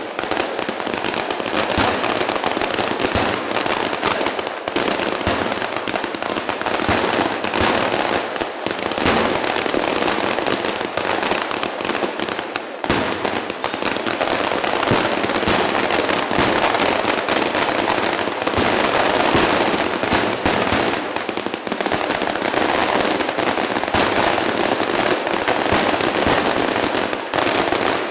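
Fireworks and firecrackers going off in a dense, unbroken barrage, countless bangs and crackles running together, with a brief lull a little under halfway through.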